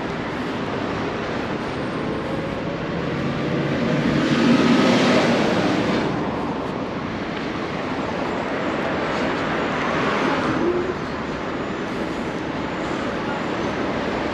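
City street traffic: a steady wash of road noise, with a vehicle passing about four seconds in and another about ten seconds in.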